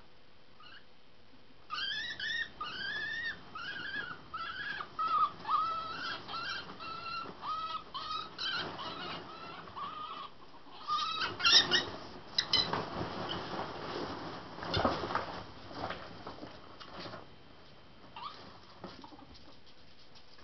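Ferrets digging through a box of foam packing peanuts: a run of short, high squeaks about twice a second, then loud rustling and scuffling of the foam peanuts with a few sharp knocks, dying away near the end.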